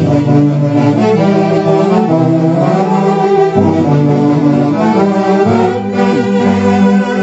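Band music: saxophones playing a melody in long held notes over a moving bass line.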